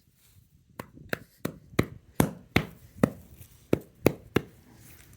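A series of about ten sharp knocks or chopping strikes, roughly three a second, starting about a second in and stopping after about four seconds.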